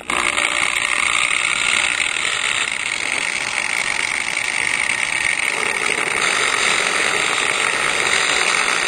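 Hand-held grinder running at speed and cutting into the steering-wheel hub to make a small slot for the horn wire: a steady high-pitched whine with a grinding hiss.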